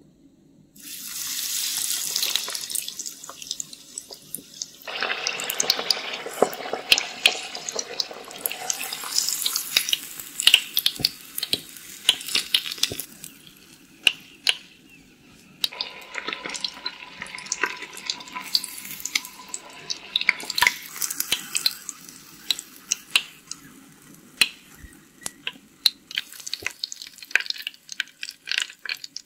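Water running from a miniature kitchen tap, starting about a second in and changing in flow a few times, with many small clicks and clinks of tiny dishes and utensils.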